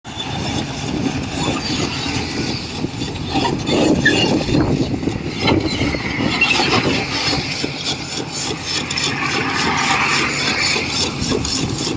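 Excavator working, its diesel engine running steadily under load, with irregular knocks from the machine's work.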